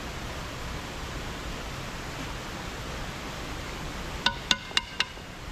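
Steady hiss of background noise, then near the end four quick, hard clinks in a row, each with a short ringing tone.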